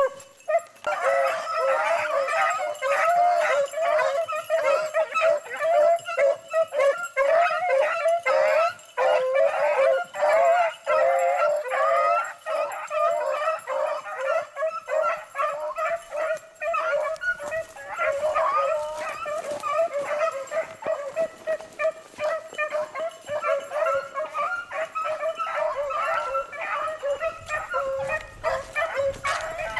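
A pack of beagles baying together without pause, many overlapping voices at once, as the hounds run a rabbit's trail.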